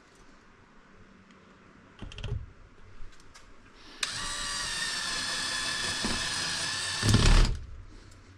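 Power drill driving a screw into the wall: a steady motor whine that starts suddenly about four seconds in, runs about three seconds, and ends with a louder burst as the screw goes home. A few light clicks come before it.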